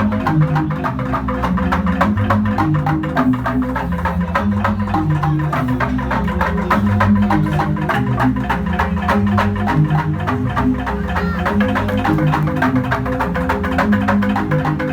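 Jegog, the Balinese bamboo gamelan, playing: rapid, dense strokes on tuned bamboo tubes over deep, ringing bass notes.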